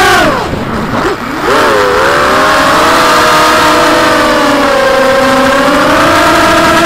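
Motors and propellers of a Gravity 250 FPV racing quadcopter whining, heard through its onboard camera. The pitch falls steeply right at the start as the throttle is cut for a dive, then climbs back about a second and a half in and holds, wavering slowly.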